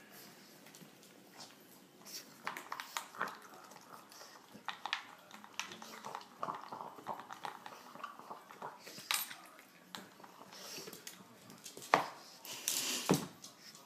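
A pug eating dry kibble from a plastic slow-feeder bowl: scattered crunches and clicks of kibble against the bowl, with a louder knock near the end.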